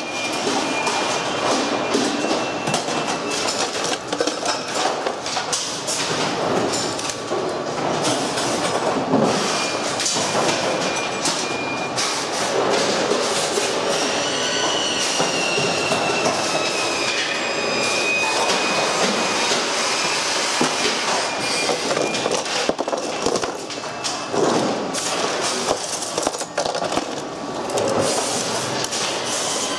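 Pachinko machine frame being pulled apart by hand with pliers and a screwdriver: steady clattering and scraping of plastic trim parts, with many clicks and screws rattling in a plastic tub. Thin high squeaks come and go as the plastic pieces rub.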